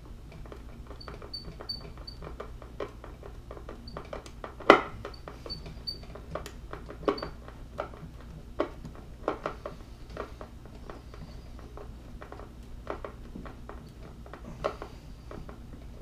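Hand screwdriver driving a half-inch #6 stainless steel screw through a metal mailbox number tag into a soft pine hive body: irregular small clicks and creaks as the screw turns, with one sharper knock about five seconds in.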